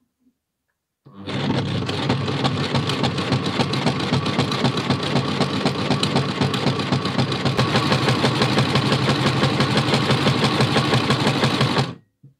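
Electric domestic sewing machine stitching a seam along a folded fabric strip, starting about a second in and running at a steady speed with a quick, even stitching rhythm. It stops suddenly near the end.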